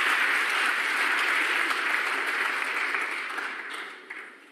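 Snooker audience applauding a well-made pot, the clapping steady at first and dying away near the end.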